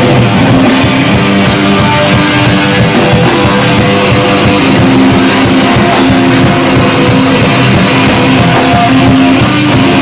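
Rock band playing live, loud and continuous: electric guitar over bass and drums, with held guitar notes and constant drum hits.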